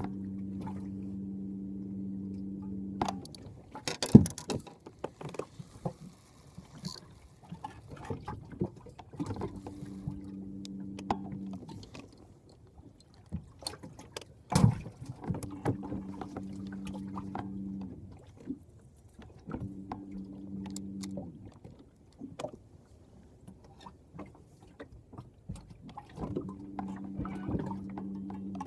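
Electric trolling motor humming in short runs of two to three seconds, switched on and off about five times. Scattered sharp knocks fall between the runs, the loudest about four seconds in.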